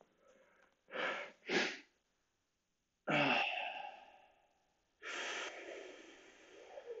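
A man breathing deeply through a held hip stretch: two short breaths about a second in, then a longer breath out with a little voice at its start at about three seconds, and another long breath out about five seconds in.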